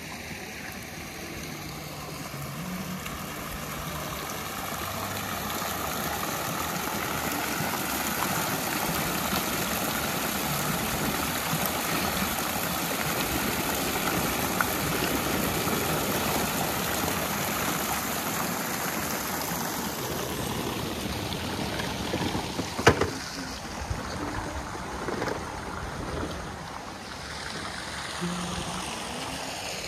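Water jets spraying and splashing into a concrete trout pool, a steady rush of water that swells through the middle and eases later, with a single sharp knock about three-quarters of the way through.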